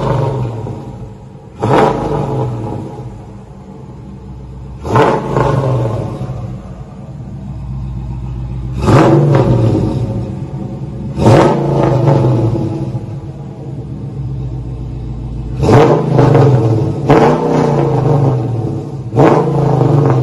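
2019 Dodge Charger R/T's 5.7 L Hemi V8, breathing through long tube headers, high flow cats, a true X pipe and single chamber V-tube mufflers, revved about seven times in quick blips. After each blip it drops back to idle.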